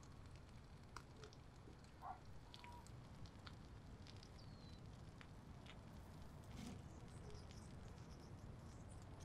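Near silence: faint outdoor ambience with scattered soft ticks and crackles, and a brief high chirp about four seconds in.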